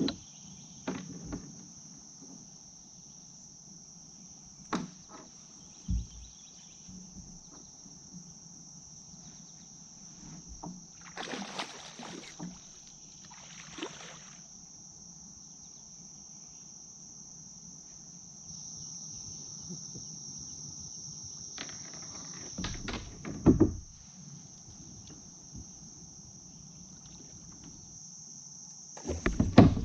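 Steady high-pitched drone of insects, with scattered knocks and splashing from a kayak on the water, the loudest of them about three-quarters of the way through and again at the end.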